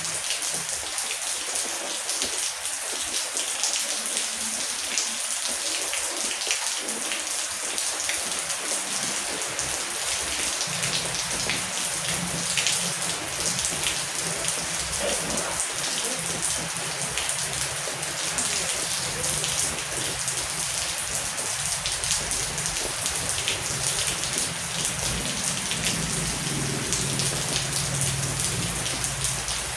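Heavy rain falling steadily, with many separate drop hits. About a third of the way in, a low rumble of distant thunder comes in underneath and carries on.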